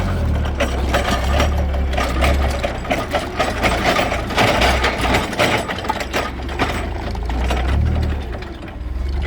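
A machine running with a low hum and fast, dense mechanical clicking and rattling, easing off briefly near the end.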